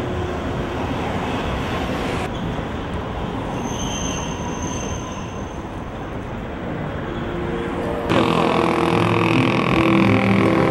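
City street traffic with a streetcar on the road: a steady rumble of vehicles, with a brief high squeal about four seconds in. About eight seconds in, background music with sustained notes comes in.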